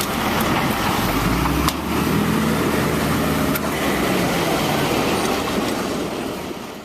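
Truck engine running steadily, with a couple of sharp clicks about two and three and a half seconds in. The sound fades out at the end.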